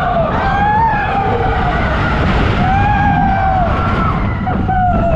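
Several roller-coaster riders screaming in long, wavering cries over the steady rumble of the coaster train running on its track.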